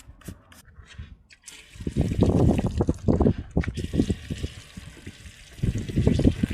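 Water sprayed onto a motorcycle chain and splashing off, rinsing away water-soluble chain cleaner; it starts about a second and a half in after some faint scraping.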